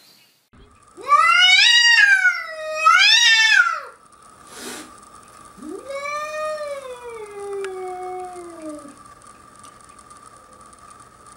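A cat yowling: two loud, drawn-out yowls that rise and fall in pitch, then, after a short click, a longer and quieter yowl that slides down in pitch.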